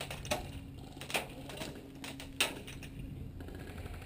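Airsoft gunfire: three sharp cracks with a few smaller clicks, irregularly spaced, over a faint low steady hum.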